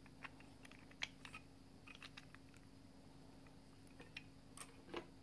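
Faint, scattered clicks and taps of fingers handling a small 3D-printed plastic elephant, the sharpest about a second in and a few more near the end, over a low steady hum.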